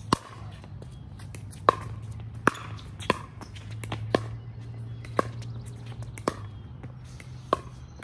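Pickleball paddles hitting a plastic pickleball back and forth in a rally: about eight sharp pops, roughly a second apart.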